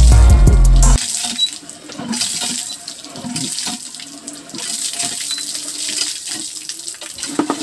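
Background music cuts off about a second in. It gives way to water splashing and gushing from a cast-iron hand pump's spout as the pump is worked, with scattered knocks from the pumping. The pump has been primed with water poured into its head and is now delivering water.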